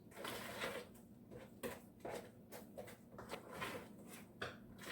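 A spoon stirring and scraping thick hush puppy batter in a bowl: faint, uneven strokes about twice a second.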